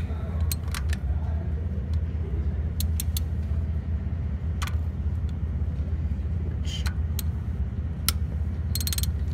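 Steady low hum, with scattered light metallic clicks of hand tools working on the engine's oil control valve bolts and a quick run of clicks near the end.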